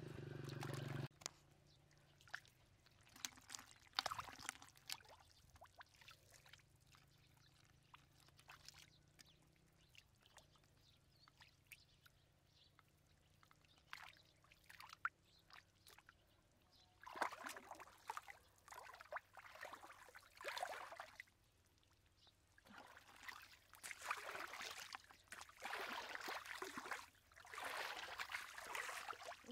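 Hands splashing and sloshing in shallow muddy water: scattered small splashes and squelches at first, then longer stretches of sloshing in the second half.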